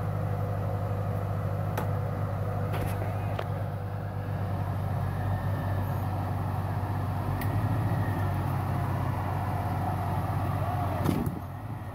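Jeep Cherokee XJ's engine running low and steady as it crawls over rocks, with a few sharp knocks along the way.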